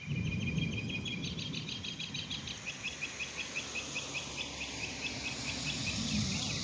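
High-pitched chirping in a fast, even trill of about eight notes a second, with a low rumble underneath.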